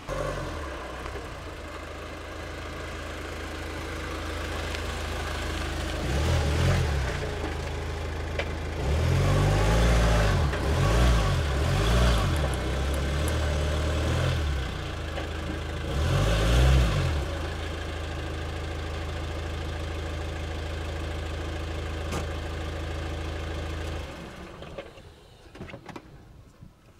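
Suzuki Grand Vitara's 1.9 DDiS turbodiesel engine running as the SUV drives and manoeuvres, the revs rising and falling several times. It then idles steadily and is switched off a few seconds before the end.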